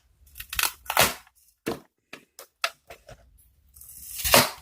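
Sharp clicks and snaps of plastic being pried apart as a ChargeTech power bank's tightly held battery pack is forced out, building near the end to one loud crack.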